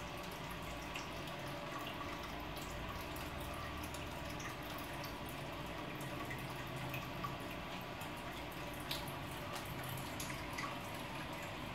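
Aquarium water circulation: a steady trickle of water with scattered small drips.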